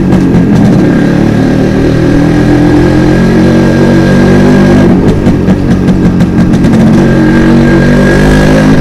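Yamaha RX100's single-cylinder two-stroke engine running under way, the rider's-eye sound of the bike pulling along. Its note climbs and dips briefly twice, about five and seven seconds in.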